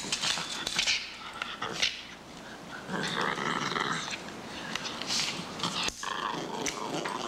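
Small shaggy dog growling and snarling in several rough bursts as it bites and tugs at a stick held out to it.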